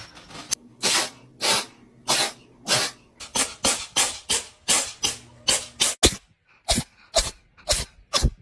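A cat sneezing over and over in a sneezing fit: short, sharp sneezes about two to three a second, with a brief pause a little after six seconds.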